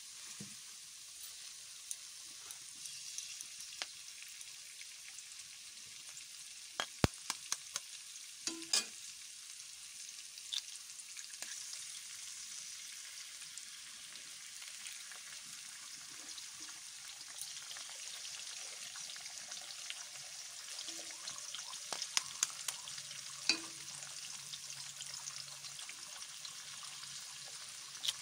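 Eggs frying in oil in a steel kadai: a steady sizzling hiss. A few sharp taps come in a cluster about seven seconds in and again about twenty-two seconds in, as eggshells are cracked against the pan.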